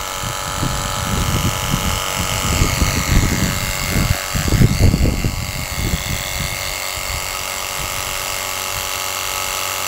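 Strong gusting wind buffeting the microphone, swelling hardest a few seconds in, over a steady high whine of a small electric pump motor from a portable car washer.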